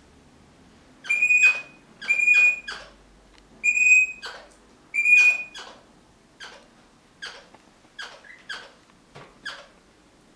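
Crimson rosella calling in defence of a sock it guards: four loud, shrill calls, each a held whistle-like note breaking into a harsh chatter, then a run of shorter, quieter sharp calls.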